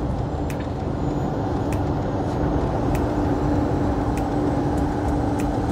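Heavy truck on the move, heard from inside the cab: a steady engine and road drone with a constant hum running under it.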